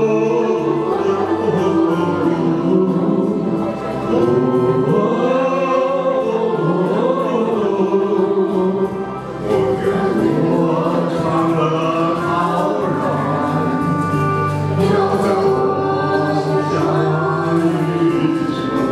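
Karaoke duet: a man and a woman singing a song through handheld microphones over a recorded backing track.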